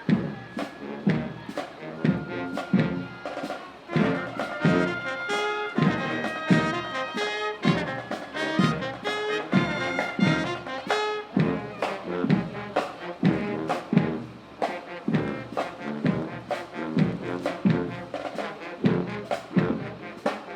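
Brass music with a steady drum beat: horns holding and changing notes over regular drum hits about twice a second.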